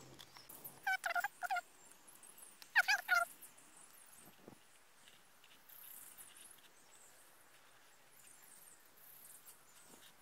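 A bird calling in two short bursts of wavering, high-pitched notes, about a second and about three seconds in.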